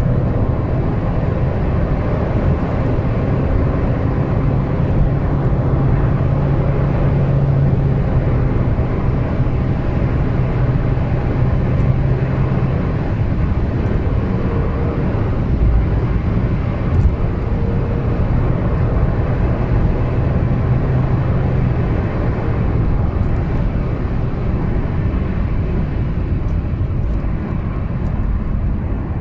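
Cabin noise of a Honda Mobilio RS's 1.5-litre four-cylinder engine at high highway speed: a steady engine drone over road and wind noise, with the car held at its low speed limiter. About three-quarters of the way through, the engine drone drops away as the car slows.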